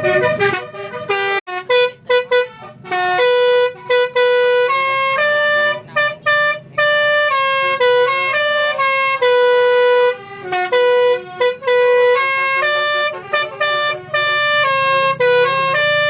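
Bus basuri horn, a multi-tone musical air horn, played as a melody from a pianika-style keyboard controller. A string of held notes stepping up and down in pitch, with short breaks between phrases.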